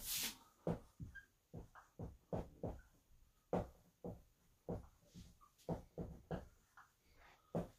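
Dry-erase marker writing on a whiteboard: a run of short, irregular strokes, two or three a second.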